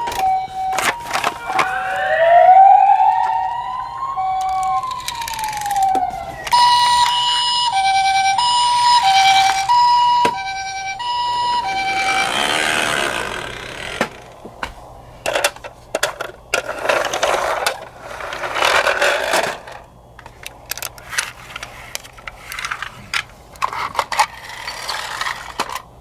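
Toy ambulance electronic sirens. A two-tone hi-lo siren plays first, then a single wail that rises and falls, then the hi-lo siren again until about halfway. The rest is irregular rustling and clicking from handling the toys.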